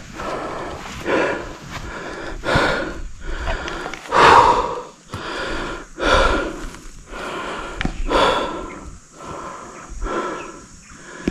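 A person breathing hard and heavily, in a regular rhythm of loud breaths about every one and a half to two seconds.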